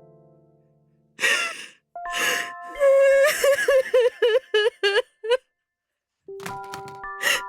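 A woman gasping and then wailing in broken sobs over held, sustained music chords; after a short silence the chords return with another sharp gasp near the end.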